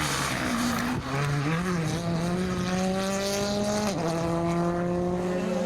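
Rally car engine accelerating hard, its pitch climbing steadily, with one upshift about four seconds in, after which it climbs again.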